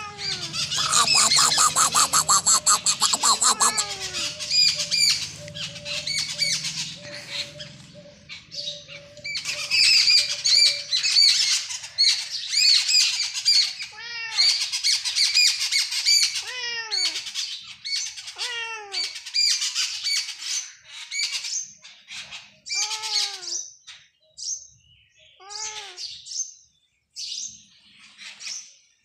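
Small birds chirping busily, with a cat giving short meows every two or three seconds in the second half.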